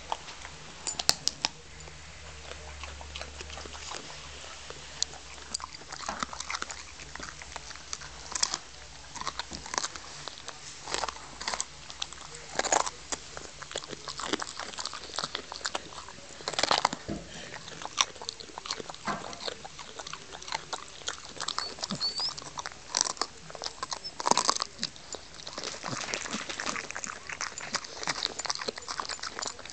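A dog chewing a raw broccoli stem, with many irregular crunches and bites.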